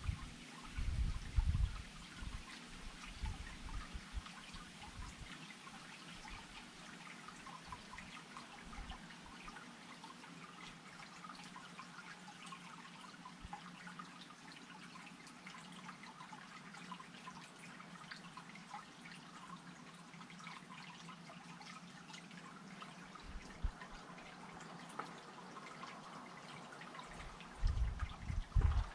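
Water dripping and trickling, many small drops pattering steadily. Low rumbling surges come briefly at the start and again near the end.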